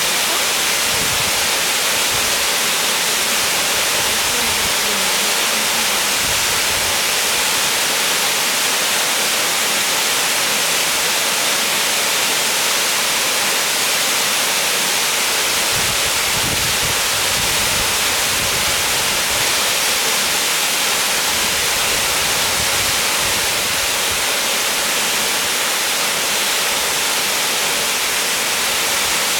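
Waterfall rushing in a loud, steady, unbroken wash of falling water.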